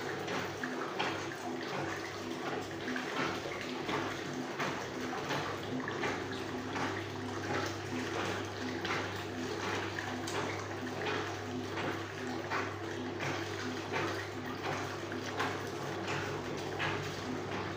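Pedicure spa bowl's whirlpool jets running: water churning and splashing in the basin over a steady pump hum.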